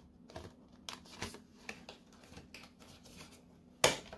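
Clear plastic wrapping and a plastic Blu-ray/DVD case being handled: a string of short, crackly rustles, with one sharp clack near the end.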